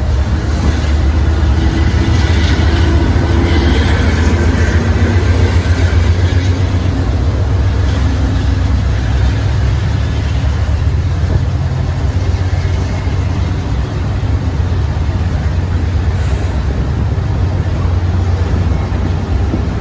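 Diesel locomotive engine running, a loud, steady, deep rumble with some fainter higher tones in the first few seconds.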